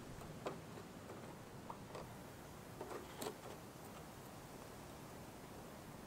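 A few faint clicks and taps, about five in the first three and a half seconds, from hands handling a wooden beehive box. The sharpest comes about half a second in and another just after three seconds.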